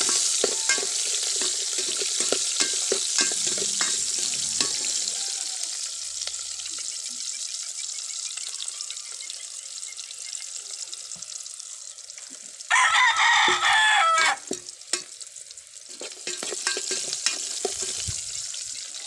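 Garlic and onion sizzling in hot oil in a metal pot, stirred and scraped with a metal spoon, making a steady hiss dotted with small clicks. A little past the middle a rooster crows loudly once, for about a second and a half.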